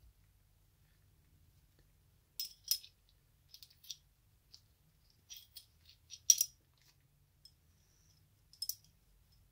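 Colt 1908 Vest Pocket pistol's steel slide, barrel and frame clicking and scraping together as they are handled and fitted during reassembly. Irregular small metallic clicks, the sharpest a little past six seconds in.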